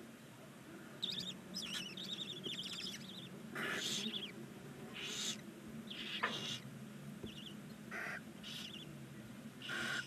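Barn owls in a nest box: a run of rapid, high chittering twitters, then about five short rasping hisses spaced a second or so apart. These are the begging hiss-calls of young barn owl chicks.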